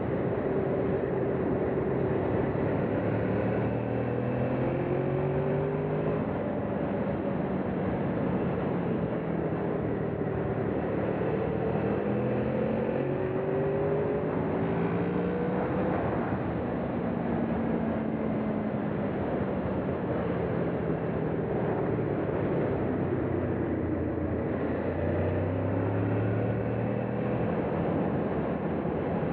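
Honda VFR800's V4 engine running on the move under steady wind rush, its note climbing and dropping back several times through the ride.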